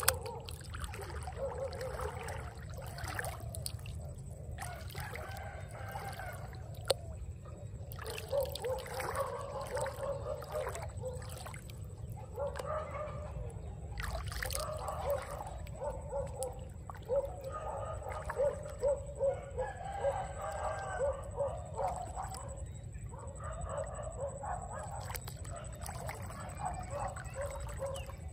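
Shallow floodwater splashing and trickling as a hand moves through it, with a few sharp splashes. Over it, an animal calls again and again in bouts of a few seconds.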